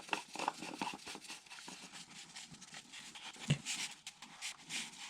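Oil filter housing being threaded in by hand: faint clicks and scraping of the cap and filter, with one sharper knock about three and a half seconds in.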